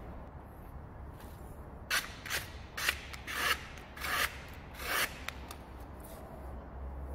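Sheets of paper rustling and rubbing as a knife blade is set down and slid across them. The sound comes as about six short scraping strokes, starting about two seconds in and spaced half a second to a second apart.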